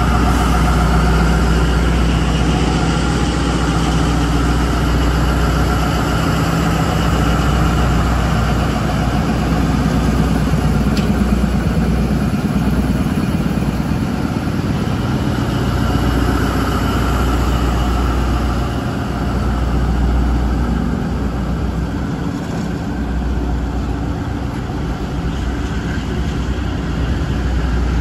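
Diesel locomotive engine idling, a steady deep drone.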